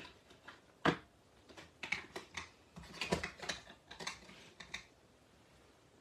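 Plastic Distress Oxide ink pad cases being handled: a lid pulled off and the pads set down on a craft mat, giving a series of sharp plastic clicks and taps. One loud click comes about a second in, then a flurry of clicks, and they stop about five seconds in.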